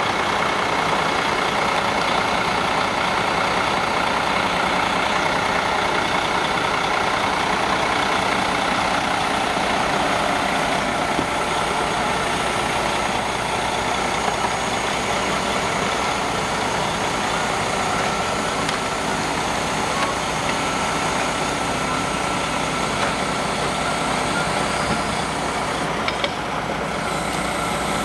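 Heavy diesel equipment engine running steadily, a constant drone with a few steady tones over it.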